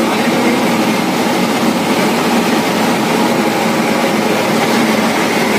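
Steady, loud whooshing drone of the auxiliary machinery (blowers and fans) running in the machine room of an energised WAG9/WAP7 three-phase electric locomotive, with a faint steady hum underneath.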